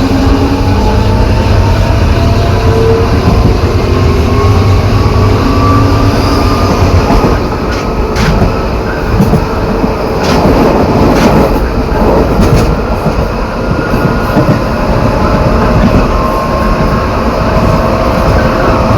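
São Paulo Metro Line 3 train 225 accelerating. The traction motor and inverter whine rises steadily in pitch over a low growl from the reduction gearbox, a growl that is unusual on this train. Several sharp clicks come about halfway through.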